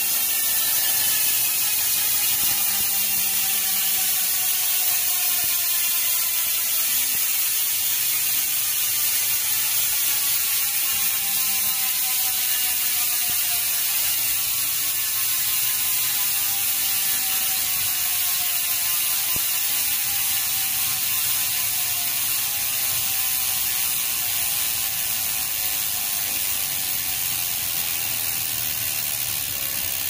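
Genova Maverick Big Dipper rear hub's six-pawl freehub making its loud cricket-like buzz as the rear wheel coasts freely. It is a dense, rapid run of ratchet clicks whose pitch slowly falls as the wheel gradually loses speed.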